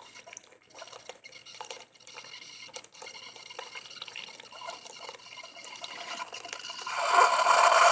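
Hot tea brewing into a cup: quiet dripping and trickling, then a loud hissing, gurgling sputter that builds about seven seconds in as the brew finishes.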